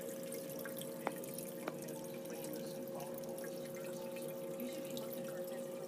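Water trickling and dripping in a reef aquarium's sump and refugium system, over a steady hum, with two faint ticks about one and two seconds in.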